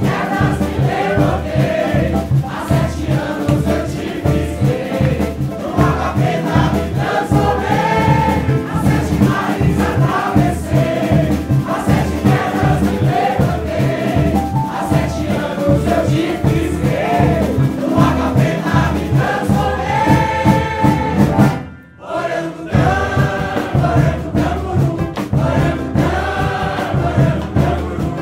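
A Brazilian carnival bloco's song: a mixed chorus of men and women singing in Portuguese over a steady drum beat. About three-quarters of the way through the music breaks off for a moment, then comes straight back in.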